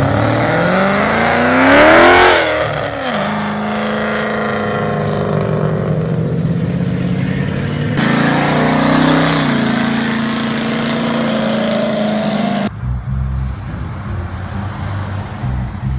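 V8 cars accelerating past one after another. A white Shelby Mustang passes loudest, about two seconds in, its engine pitch rising and then dropping away as it goes by. A classic Ford fastback follows with a shorter rising and falling pass, and near the end a pickup truck pulls by with a lower, rougher engine note.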